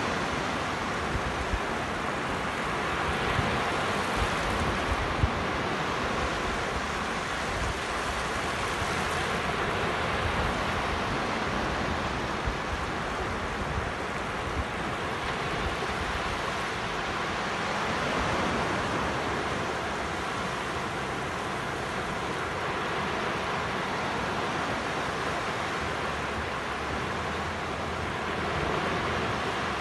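Small surf breaking and washing up a sandy beach: a steady rushing that swells and eases, with a few brief low bumps in the first half.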